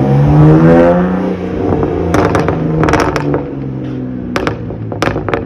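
Straight-piped 2009 BMW 328xi's 3.0-litre inline-six accelerating away, its note rising in pitch for about a second. Then the revs ease off, and a string of sharp exhaust backfires cracks out through the open pipes.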